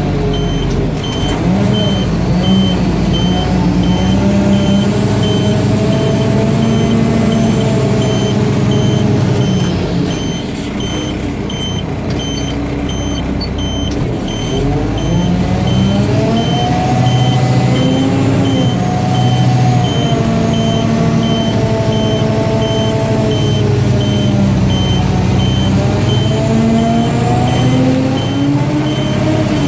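Mack DM690 concrete mixer truck's diesel engine running, its revs rising and falling several times, with a backup alarm beeping steadily as the truck reverses.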